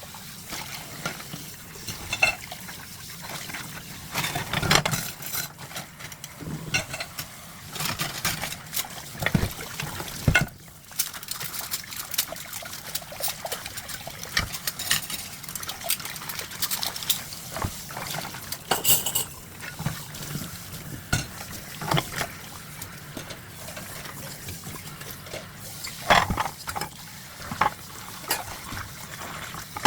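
Washing dishes by hand at a sink: water running and splashing steadily, with dishes clinking and clattering against each other and the sink now and then.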